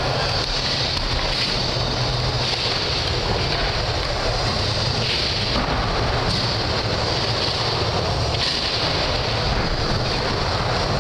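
Skateboard wheels rolling back and forth on a wooden mini ramp: a steady rumble and hiss whose upper hiss shifts every couple of seconds as the rider carves the transitions.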